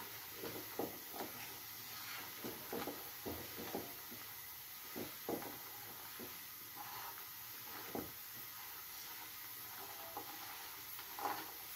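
Silicone spatula stirring jaggery and water in a frying pan, faint irregular scraping strokes over a low bubbling hiss, as the jaggery melts into a thin syrup.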